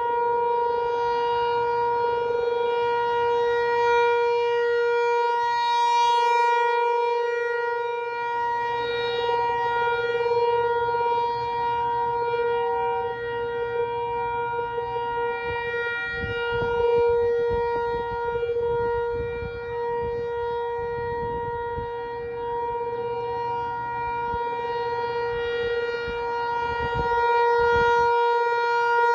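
American Signal T128 outdoor warning siren sounding a steady single tone, its loudness swelling and fading as the rotating head sweeps around: the alert signal for a tornado warning drill.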